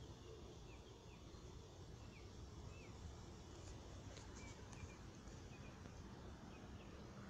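Near silence: faint outdoor ambience with a low steady rumble and a series of short, faint bird chirps in the first half.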